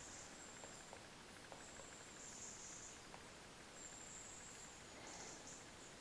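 Near silence in the forest, with a faint high-pitched insect trill that comes and goes in phrases of about a second.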